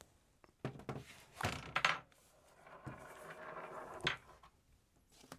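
Handling of a plastic Amiga 1200 computer case and keyboard: a few knocks, a scraping slide for about a second and a half, then a sharp knock.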